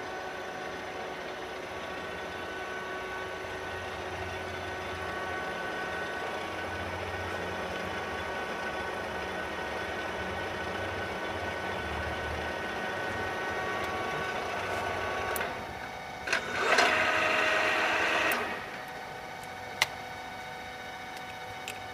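Soraluce TR 2-2000 radial drill running, its spindle drive and gearbox giving a steady mechanical hum with a light whine. About fifteen seconds in the running sound drops away. A louder mechanical whirr follows for about two seconds, then a single sharp click.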